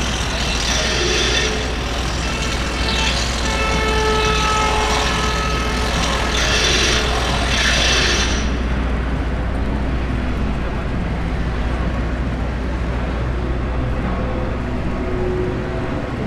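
Busy city street ambience: steady traffic rumble with voices of passers-by mixed in. There are three brief louder, brighter bursts in the first eight seconds, which the tags take for vehicle or horn noise.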